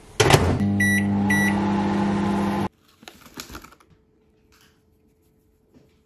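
Kenwood microwave oven starting with a click and running with a loud steady hum. Two short high beeps from its keypad come about a second in. The hum cuts off abruptly before three seconds in, leaving only a few faint handling sounds.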